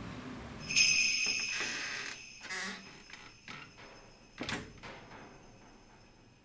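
A sudden bright metallic ringing, several high tones struck together like chimes or small bells, fading slowly over about five seconds, with a few softer clicks and tinkles as it dies away.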